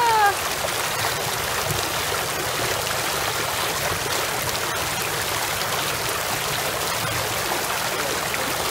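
Steady rushing and splashing of water jets churning a shallow wading pool.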